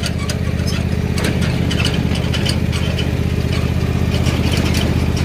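Ride-on lawn mower's small engine running steadily at an even pitch while driving, with scattered irregular clicks over it.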